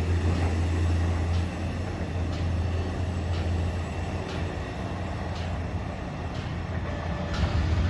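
A train running on the rails, a steady low rumble with a light click about once a second.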